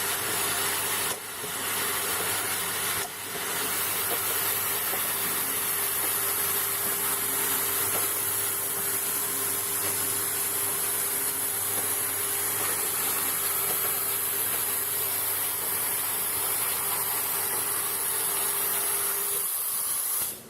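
Four-nozzle conveyor-line liquid filling machine running: a steady mechanical hum with a constant hiss, briefly dipping twice in the first few seconds and dropping off suddenly near the end.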